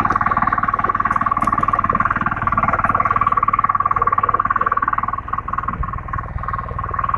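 Husqvarna power tiller's engine running under load while its rotary tines churn dry, hard soil. The engine gives a rapid, steady pulsing note that gets a little quieter and more uneven about five seconds in.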